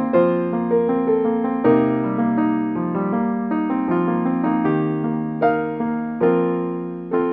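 Background music: a gentle piano piece, single notes and chords struck about twice a second and left to ring, with a chord fading out near the end.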